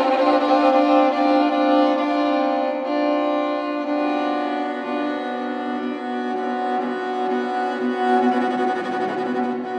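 String quartet of two violins, viola and cello playing contemporary classical music, holding long bowed notes that form sustained chords.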